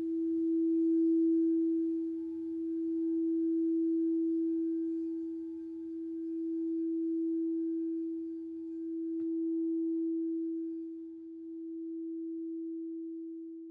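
Singing bowl ringing with one steady tone, its loudness swelling and fading in slow waves about every three seconds, then dying away near the end.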